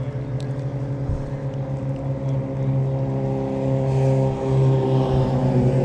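A steady engine-like drone with a low hum, growing louder about four seconds in.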